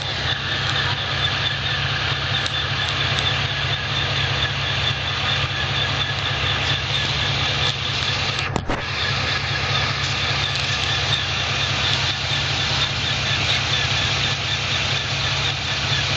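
2007 Chevrolet Monte Carlo SS's 5.3-litre V8 idling steadily, carrying an unexplained noise that the owner hears only in neutral and park. The sound cuts out for a split second about halfway through.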